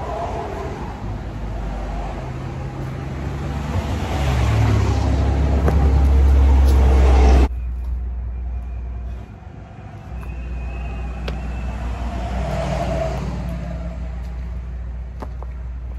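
Deep rumble of passing road traffic with an engine note. It builds for a few seconds, cuts off abruptly about halfway through, and a second, quieter pass swells near the end.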